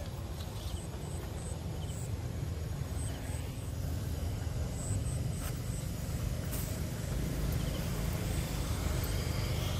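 Steady low outdoor rumble, growing slightly louder, with faint short high chirps repeating irregularly above it.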